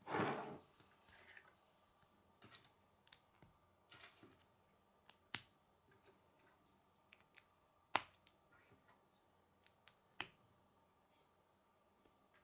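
K'nex plastic rods and connectors clicking as they are pressed and snapped together by hand: a dozen or so sharp, separate clicks at an irregular pace, after a short rustle of handling at the start.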